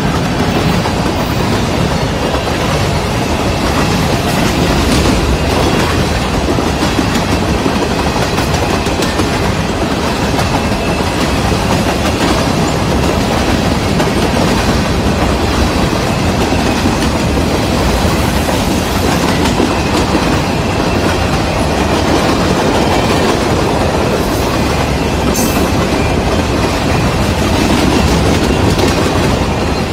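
Covered hopper grain cars of a fast freight train rolling past at speed: loud, steady rushing of wheels on rail.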